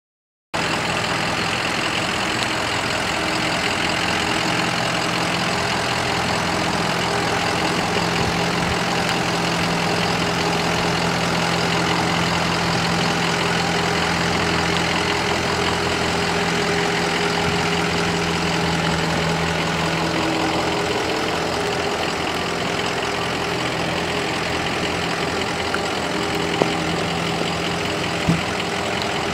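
6.0-litre V8 turbo diesel of a 2003 Ford F250 Super Duty pickup idling steadily, with two brief clicks near the end.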